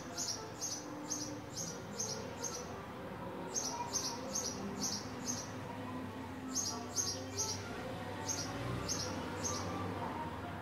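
House sparrow chirping a run of short, high cheeps, about two to three a second, in three bouts separated by brief pauses, over a steady low hum from the street.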